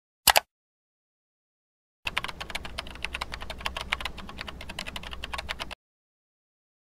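A quick double click about a quarter second in, then about three and a half seconds of rapid computer-keyboard typing, keys clattering several times a second.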